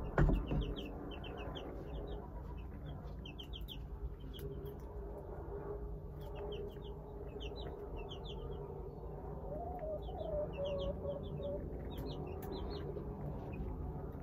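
Baby chicks peeping: short high cheeps in quick runs of three or four, repeated again and again, over a steady low hum. A thump right at the start is the loudest sound.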